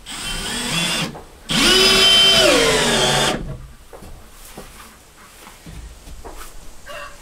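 Cordless drill driving screws into wood: a short run of about a second, then a longer run of about two seconds whose motor whine drops in pitch near the end.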